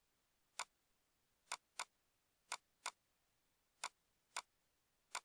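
Computer mouse button clicking: eight sharp clicks, some in quick pairs, as the desktop is right-clicked and Refresh is chosen from the menu.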